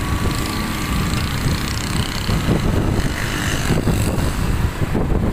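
Motorcycle engines running and wind buffeting the microphone while riding along a road, a steady rumbling road noise.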